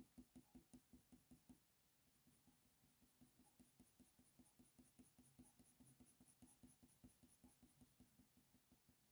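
Faint, rapid short strokes of a sharp Faber-Castell Polychromos coloured pencil scratching on hot-press watercolour paper as fur is flicked in, about five strokes a second. After a brief pause, fainter, quicker strokes resume.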